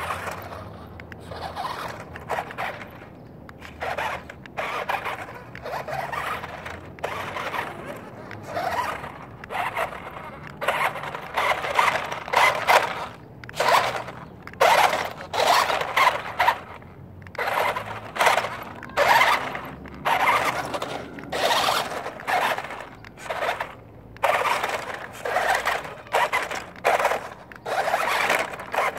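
Radio-controlled monster truck driving over dirt and gravel in repeated short bursts of throttle, its electric motor and gears whining and its tyres scraping on the stones, roughly one burst a second.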